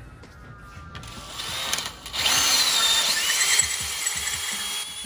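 Power drill with a special bit boring out the tapered tie-rod hole in a steering knuckle so a straight bolt can fit through. It starts about a second in, pauses briefly, then runs loud with a high motor whine that shifts in pitch as the bit cuts.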